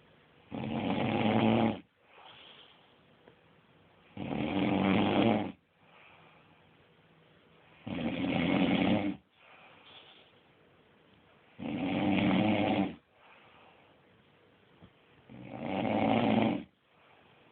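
A woman snoring in her sleep: five long snores, each over a second long and about one every four seconds, with quiet breathing between them.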